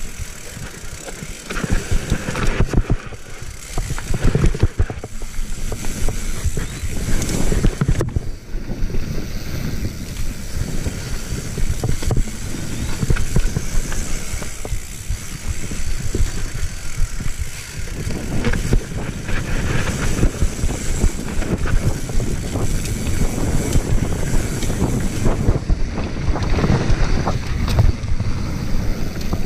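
Mountain bike riding down a dirt singletrack: tyres rumbling over the rough ground with a continuous clatter and rattle from the bike, and wind buffeting the microphone.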